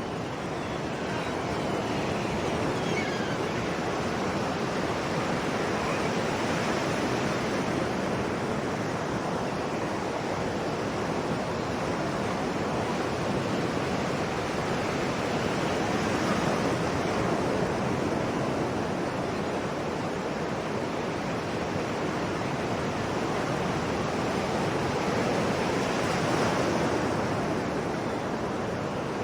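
Sea waves breaking and washing on the shore: a steady rush of surf that swells and eases about every ten seconds, three times.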